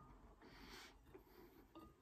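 Quiet eating sounds: a soft breath through the nose about half a second in, then near the end a wooden spoon clinks once on a ceramic plate with a brief ring as food is scooped up.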